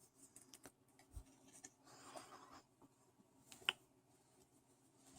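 Faint handling of Pokémon trading cards: soft rustling and small clicks as cards slide against one another, with one sharper tap about three and a half seconds in.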